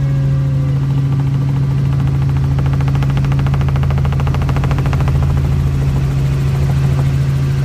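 Robinson R44 helicopter in flight heard from inside the cabin: a steady drone of its six-cylinder piston engine and rotor system, with a fine rapid pulsing that swells and fades again in the middle.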